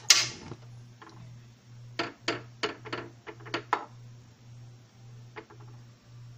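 A spoon knocks and clicks against cookware: one loud sharp knock with a brief ring at the start, a quick run of about seven clicks a couple of seconds later, and one more near the end. A low hum pulses about twice a second underneath.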